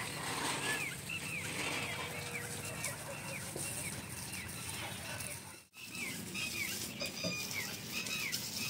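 Small birds chirping repeatedly, short falling chirps in quick, uneven succession over a steady background hiss. The sound drops out for a moment a little past halfway.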